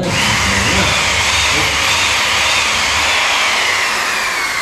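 Handheld power drill running under load at the door frame, a loud steady whir with a motor whine that wavers and then falls steadily in pitch as it works.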